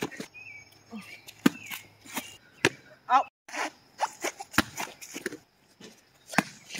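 A volleyball being struck by hands and forearms: a string of sharp, irregularly spaced slaps, with a brief voice about three seconds in.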